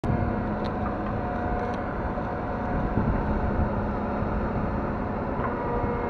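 Diesel engine of a Fortschritt E-516B combine harvester running steadily, with a low hum and a couple of steady tones over it.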